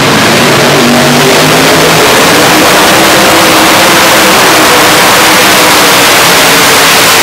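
Modified pulling tractor with several supercharged engines running at full throttle as it drags the weight-transfer sled, a loud, steady howl whose pitch wavers slightly.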